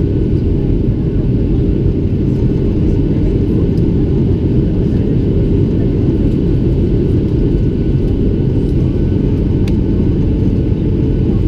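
Boeing 737-700 cabin noise in flight during the descent, heard from a window seat over the wing: the steady, loud rumble of the CFM56-7B engines and the airflow, with a faint steady whine above it.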